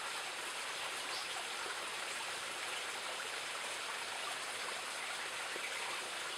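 Steady rushing of a shallow rocky stream, an even water sound with no clear breaks.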